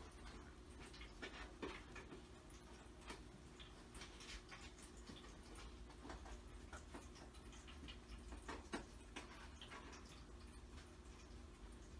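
Near silence with a steady low hum and faint, irregular small clicks and taps, two of them a little louder, about a second and a half in and near nine seconds in.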